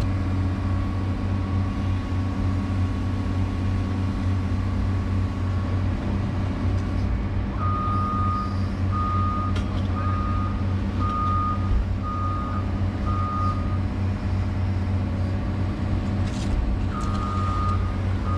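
Excavator's diesel engine running steadily, heard from inside the cab. About halfway in, a backup alarm beeps six times at roughly one beep a second, and starts beeping again near the end.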